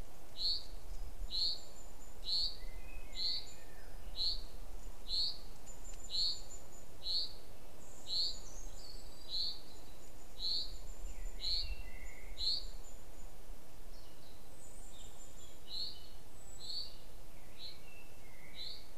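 A small songbird in the surrounding woodland repeats a single short, high note about once a second, pausing briefly about two-thirds of the way through and then going on. Fainter, higher chirps from other birds sound over a steady outdoor background hiss.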